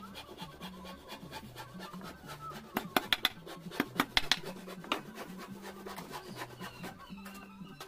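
A hammer tapping the wooden frame of a router jig: a quick run of about eight sharp knocks between three and five seconds in, over faint background music.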